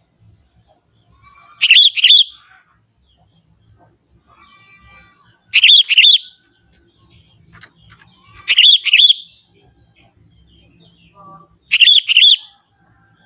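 Young sooty-headed bulbul calling: four short, loud phrases of two or three quick bubbling notes, about three seconds apart, with faint softer bird notes in between.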